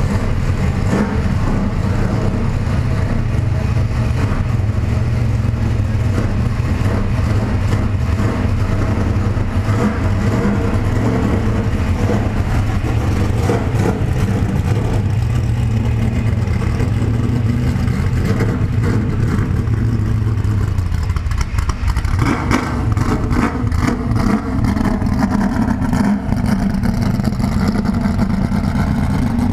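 Stock car race engine running loud and steady at a lumpy idle. In the last several seconds the pitch rises and falls a few times as the throttle is blipped.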